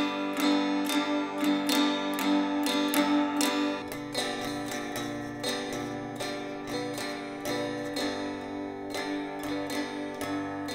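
Cigar box guitar strummed steadily, about two strums a second, over a steady ringing drone note. The strumming softens through the middle and picks up again near the end.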